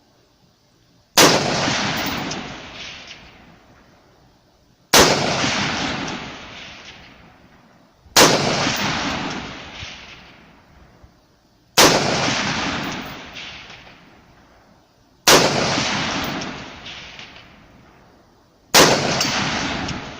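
WK180C .223 rifle firing six single aimed shots, about three and a half seconds apart. Each shot is followed by a long echo that dies away over about three seconds.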